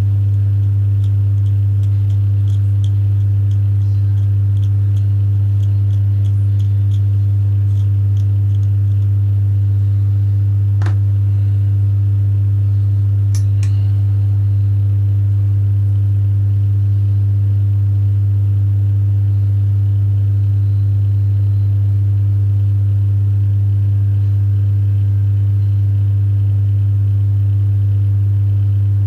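Loud, steady low electrical hum with fainter overtones, the kind given off by mains-powered bench equipment or picked up by the recording. Faint light ticks come through it over the first nine seconds or so, with a sharp click about eleven seconds in and another pair near fourteen seconds.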